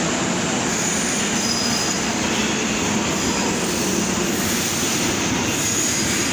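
Metrô Rio subway train moving along an underground station platform: a steady rumble of steel wheels on rail, with brief faint high wheel squeals.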